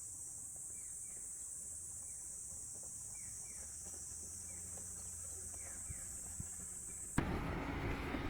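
Steady high-pitched insect drone with several short, falling bird chirps. About seven seconds in, it switches suddenly to louder outdoor ambience with a sharp click.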